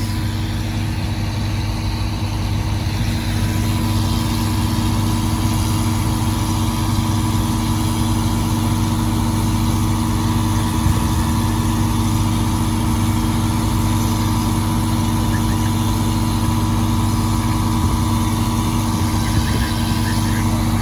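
Diesel engine idling steadily on a stopped welded rail train, a constant low hum with no change in speed.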